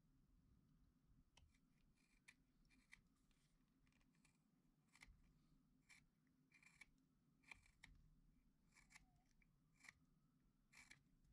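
Carving knife slicing small shavings from a wooden figure being whittled by hand: a dozen or so short, crisp cuts at irregular intervals, faint.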